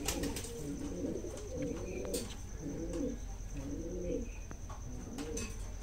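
Racing pigeons cooing in the loft: a run of about six rolling coos, roughly one a second. A few sharp clicks fall between them.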